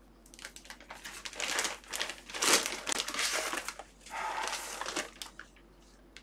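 Absorbent rust-protection packing paper crinkling and rustling as it is handled, in a run of bursts over about five seconds, loudest about halfway through.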